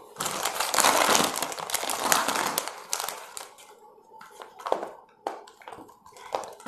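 Clear plastic packaging bag crinkling as it is handled for about three seconds, followed by sparser rustles and clicks of a paper booklet being handled.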